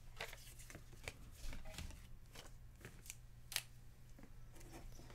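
Baseball trading cards being handled and sorted by hand: faint, scattered clicks and rustles of card stock, the sharpest about three and a half seconds in.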